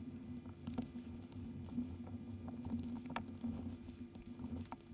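Scattered light clicks and taps as the opened plastic shaver housing and its parts are handled and a screwdriver is picked up, over a faint steady hum.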